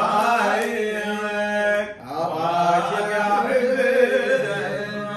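Men's voices chanting a Sudanese madih, an unaccompanied sung praise of the Prophet, in long held melodic lines that break briefly about two seconds in and then resume.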